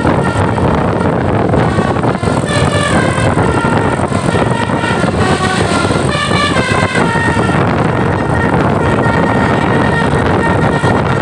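Tour bus telolet horn playing a multi-tone melody of stepping notes, in two stretches a few seconds in and around the middle, over loud, steady vehicle noise.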